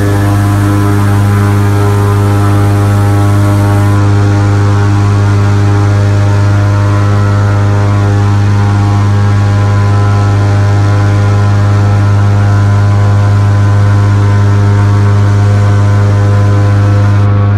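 Airboat engine and air propeller running steadily at speed: a loud, even, low-pitched hum that holds the same pitch throughout.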